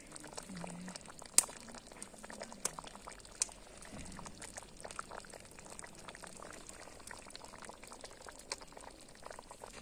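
Pot of dried-fig jam boiling hard over a wood fire, a steady dense crackle of bursting bubbles, with a few sharper clicks, the loudest about a second and a half in.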